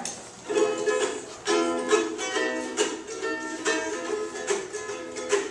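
Ukulele strummed in chords as the introduction to a song, starting about half a second in and going on in a steady strumming rhythm.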